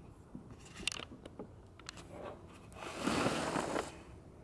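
Handling noise from the camera being moved and set in place: a few light clicks, then a rustling scrape lasting about a second, about three seconds in.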